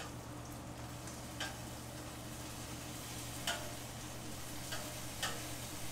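Bacon sizzling on a flat-top griddle, with a handful of sharp clicks of metal tongs tapping the cooking surface, about five over the stretch.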